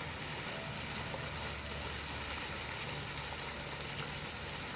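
Steady rushing hiss of flowing water.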